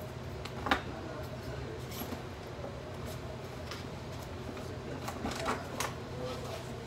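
Paper handling at a desk: short rustles and a few sharp clicks, the loudest about a second in and a couple more between five and six seconds, over a steady low room hum.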